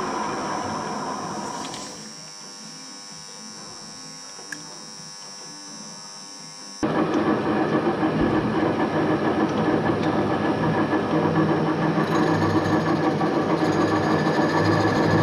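Metal lathe running while turning wood. About two seconds in it drops to a quieter steady hum, then about seven seconds in a much louder mechanical running sound starts abruptly and continues, its low rumble building near the end.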